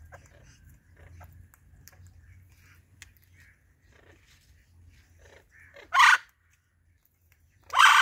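Indian ringneck parakeets chattering faintly, then two short, loud, harsh screeches: one about six seconds in and one near the end.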